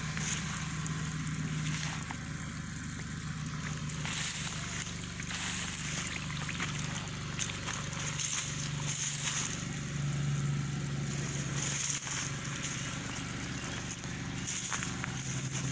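Generator engine running steadily, a low continuous hum, with patches of higher hiss coming and going over it.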